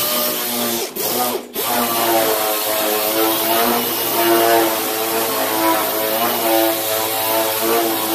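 Air-powered orbital sander running steadily with a pitched hum, dropping out briefly twice about a second in, on body filler being sanded with 40-grit paper.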